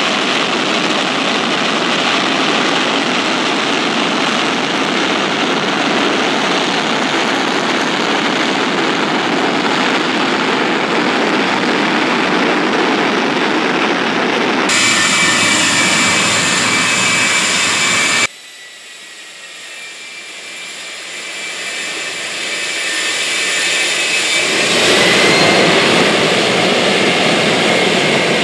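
GE J79 turbojet engine running, a loud steady roar of jet exhaust. Past the middle it turns to a brighter whine, drops abruptly to a much quieter level, and then builds back up over several seconds with a rising whine.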